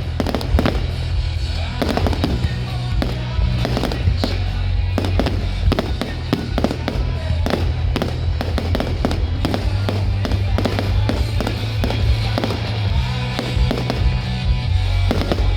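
Fireworks going off: a dense, irregular run of bangs and crackles, several a second, over loud music with a steady bass.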